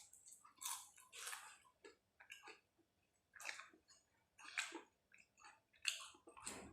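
Close-up wet chewing and lip-smacking from a mouthful of fried banana with cheese, in faint, irregular short bursts.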